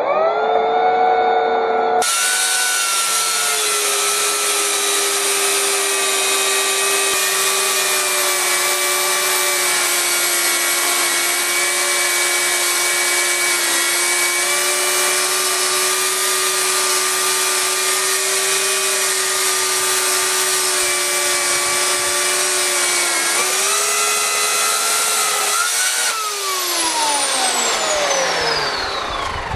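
Electric chainsaw mounted in an Alaskan-style chainsaw mill, ripping a log lengthwise: a steady motor whine with the chain cutting wood, its pitch sagging slightly under load. Near the end the pitch rises as the cut finishes, then falls steadily as the motor winds down.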